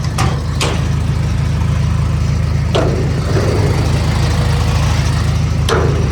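Hitachi ZX250-5 excavator's diesel engine idling steadily, with a few sharp knocks over it.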